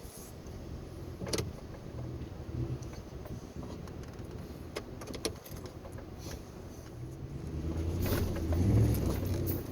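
Ford F-150's 5.0-litre V8 engine running, then revving up and getting louder about eight seconds in before dropping back near the end. A sharp knock sounds about a second in.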